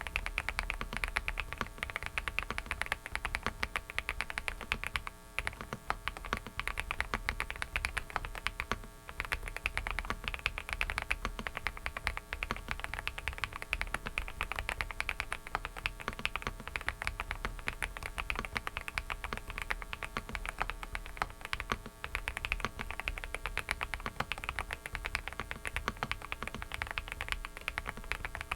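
Typing on a Dareu mechanical keyboard: a fast, continuous clatter of key switches, with short pauses about five and nine seconds in.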